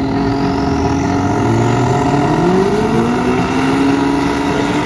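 Drag-racing motorcycle engines revving at the starting line, their pitch climbing about two seconds in and then holding high.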